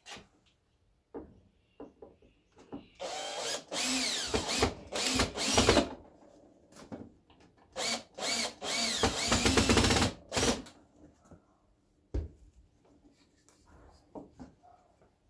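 Cordless drill-driver driving screws into merbau hardwood in two runs of a few seconds each, its whine rising and falling with the trigger. Short knocks of the wooden pieces being set into the jig come before and after.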